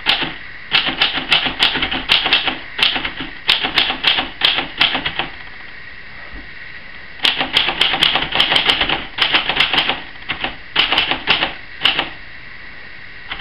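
Typing on a 1939 Royal portable typewriter: runs of sharp key strikes, several a second, with a pause of about two seconds in the middle.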